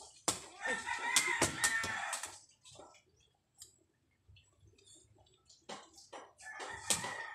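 A rooster crowing twice, a long crow about half a second in and a shorter one near the end, with sharp knocks of a sepak takraw ball being kicked.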